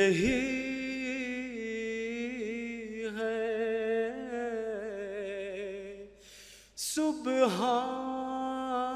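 A man's solo voice chanting an Urdu nazm unaccompanied, drawing each word out into one long wavering melodic line. The line breaks off about six seconds in and a new phrase starts about a second later.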